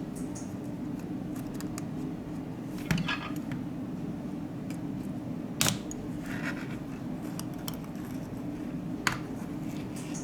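Small tools and phone parts being handled during a smartphone teardown: three sharp clicks and a short scrape over a steady low hum.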